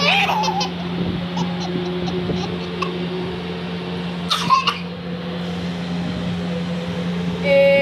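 A toddler giggling in short bursts, with a high-pitched squeal of laughter near the end, over a steady low hum.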